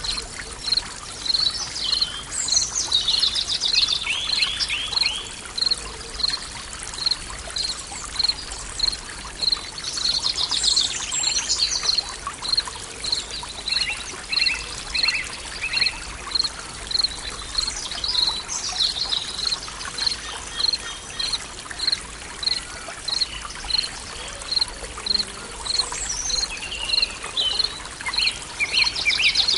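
Forest stream ambience: water trickling steadily, with songbirds calling in short phrases every several seconds over a high, evenly repeating chirp about twice a second.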